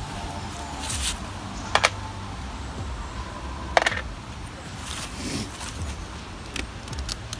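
Hands handling a spray-painted paper sheet and its paper stencil: a few sharp clicks and taps with light paper rustling, over a steady low rumble.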